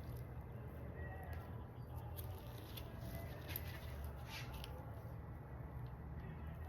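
Faint, irregular scratching and rubbing as dried glue is worked off a handbag's brass hardware, over a low steady hum.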